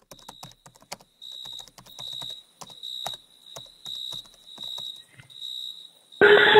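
Laptop keyboard being typed on, light clicks throughout, under a high electronic beep that repeats seven times, about every 0.7 s. Near the end a loud burst of music cuts in.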